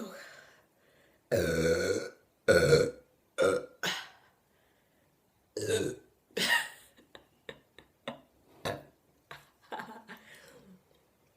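A woman burping from a bellyful of Sprite: about six loud pitched burps in the first seven seconds, the first the longest, then a few short faint clicks and gulps as she tries to hold the rest in.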